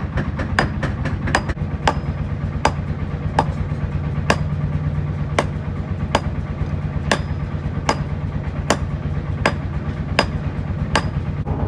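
Hand hammer striking a red-hot steel knife blank, forged from a tractor disc, on an anvil: sharp ringing metal blows, roughly one every three quarters of a second, over a steady low machine hum.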